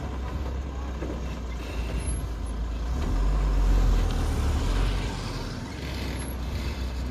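JCB backhoe loader's diesel engine running under load, the engine note swelling louder for a second or so about three seconds in, then settling back.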